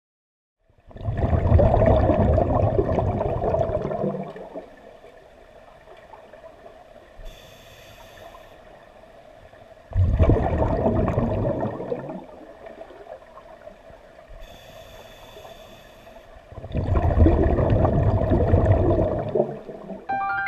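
Scuba diver breathing through a regulator underwater: three long, gurgling rushes of exhaled bubbles about seven seconds apart, with a short hissing inhale in each gap.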